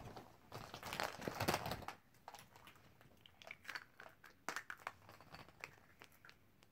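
A bag crinkling for about a second and a half, then scattered light clicks and taps of hollow plastic Easter eggs being handled.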